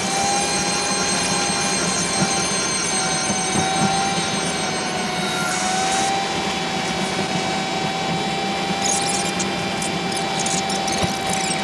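A steady mechanical hum with a high whine that wavers slightly in pitch, and a few faint clicks.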